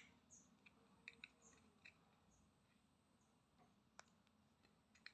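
Near silence, broken by a few faint, sharp plastic clicks as a plastic earbuds charging case and its hinge are handled, the clearest one about four seconds in.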